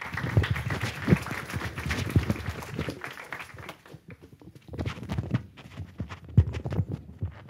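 Microphone handling noise: irregular knocks, bumps and rustling close on the microphone as it is passed between presenters, with rustling heaviest in the first three seconds.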